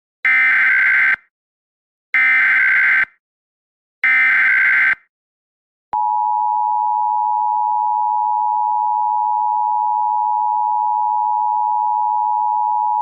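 Emergency Alert System header: three short bursts of SAME digital data tones, about two seconds apart, followed by the steady two-tone EAS attention signal (853 and 960 Hz) starting about six seconds in. Together they announce an emergency alert message.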